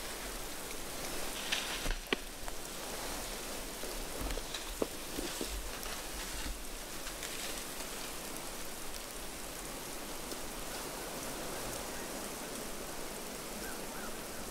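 Steady, even outdoor hiss in the woods, with a few scattered small ticks.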